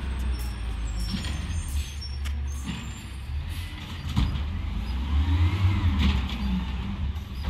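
Garbage truck working down the street: a steady low engine rumble with a few clicks and knocks, and a whine that rises and falls about five to six seconds in.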